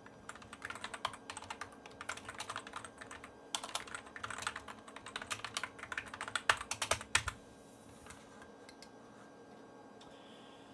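Typing on a computer keyboard: quick runs of keystrokes entering a password and password hint, stopping about seven seconds in after a few harder key presses, leaving only a faint steady hum.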